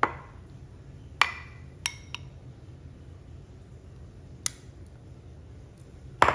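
A spoon knocking and clinking against glassware while sauce is ladled from a glass bowl into a glass baking dish: six sharp knocks spread over about six seconds, a few with a short ring.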